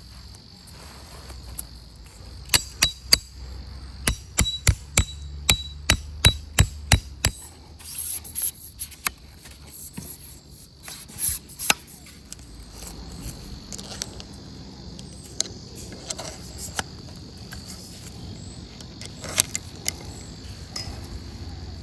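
Hammer blows, a quick run of about three strikes a second lasting some five seconds, then a few scattered knocks. A steady insect drone runs underneath.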